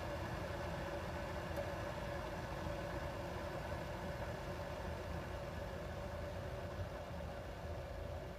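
Electric gooseneck kettle heating water: a steady low rumble and hiss with a faint even hum.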